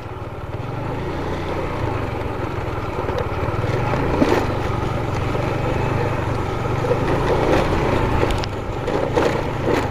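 Motorcycle engine running steadily while riding on a rough road, growing louder over the first few seconds and then holding even.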